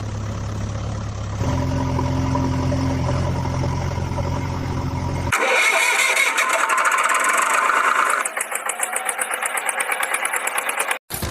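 A motor vehicle's engine starting and running with a steady low hum. About five seconds in, the sound cuts abruptly to a thinner, rattling engine noise with rapid ticking. It breaks off briefly just before the end.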